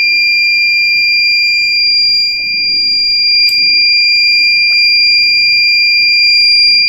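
Buzzer of an Arduino water-leak alarm sounding one steady, high-pitched tone without a break: the water-level sensor has detected water in the ship's hull.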